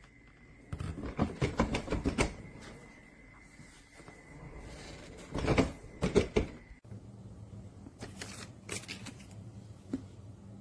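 Clusters of clicks and knocks from objects being handled, in three short bursts, with a faint steady high tone under the first part and a low hum under the last.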